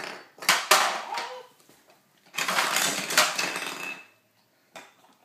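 Plastic toys clattering and a plastic bag rustling in two bursts of about a second each, with a couple of sharp clacks about half a second in.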